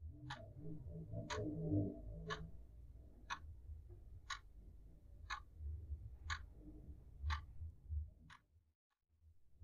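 Clock ticking about once a second, faint, over a low sustained music bed; both cut out briefly near the end.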